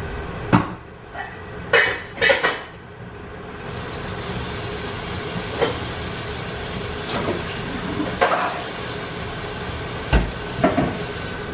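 A pot of boiled elbow noodles being drained: a few metal pot clanks, then from about four seconds in a steady rush of hot water pouring off, with occasional knocks.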